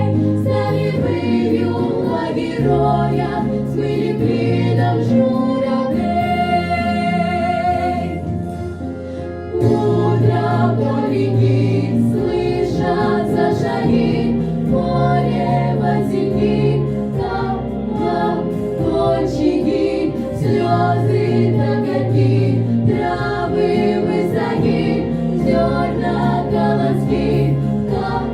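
Vocal ensemble singing in harmony over a prerecorded backing track. About six seconds in, a single long note with vibrato stands out while the accompaniment thins, and the full sound returns a few seconds later.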